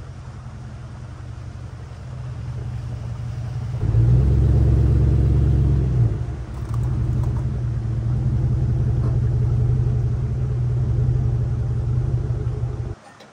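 Jeep Commander SUV's engine running as it drives slowly towing a small off-road trailer, a steady low engine note. It grows louder about four seconds in as the SUV comes closer, dips briefly, then holds steady and cuts off suddenly near the end.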